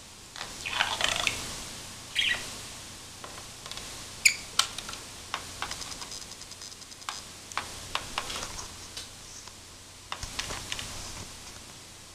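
Budgie giving a few short chirps, the first two near the start and a brief whistle-like one about four seconds in, between many small sharp clicks of its beak pecking and tapping on the laptop's plastic case.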